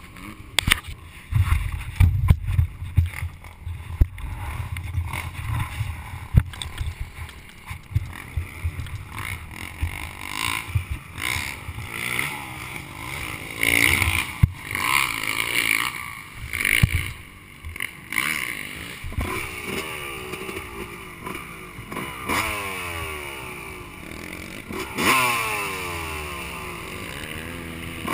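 Bumps and knocks of a helmet-mounted camera being handled, over a low rumble. About two-thirds of the way in, a motocross bike engine is heard running, its pitch rising and falling as it is revved.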